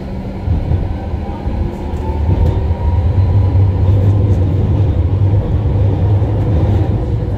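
Electric tram running along its track: a steady low hum with wheel-on-rail noise, growing louder about two and a half seconds in.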